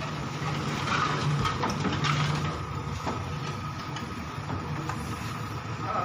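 JCB backhoe loader's diesel engine running steadily as its bucket works in brick rubble from a demolished wall, with a few short knocks.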